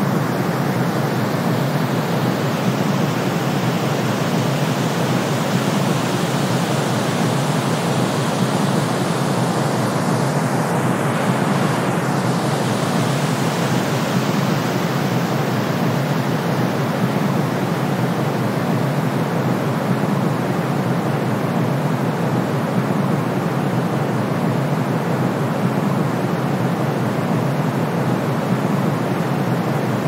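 Steady synthetic sleep noise: brown noise mixed with white noise, an even, unchanging rush with a softer hiss above it.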